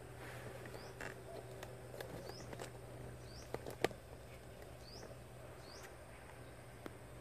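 Faint quiet ambience: short, high, rising chirps from a small animal, about six of them spaced a second or so apart, with a few scattered sharp clicks (the loudest just before four seconds in) over a steady low hum.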